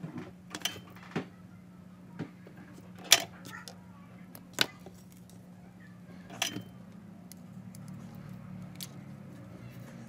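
Scattered short clicks and light knocks from wires and small parts of a disassembled hair dryer being handled and twisted on a workbench; the sharpest comes about three seconds in. A low steady hum runs underneath.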